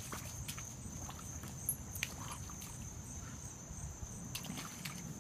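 A Doberman puppy pawing and digging in a shallow mud puddle: a few short wet slaps and scrapes of paws in mud and water, scattered through, over a steady high insect drone.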